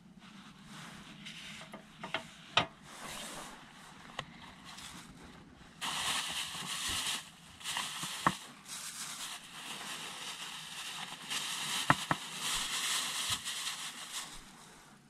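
Paper towel being crumpled and pushed into a small bin lined with a plastic bag: a crinkly rustling, louder from about six seconds in, with a few sharp clicks.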